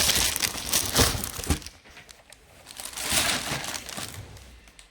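Plastic packaging crinkling and rustling as it is handled, in two spells, with a few sharp knocks in the first second and a half.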